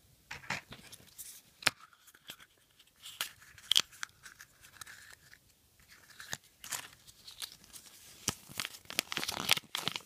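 Plastic Kinder Surprise capsules being handled, with scattered sharp clicks and knocks as one is pulled open. Near the end, a folded paper leaflet crinkles as it is unfolded.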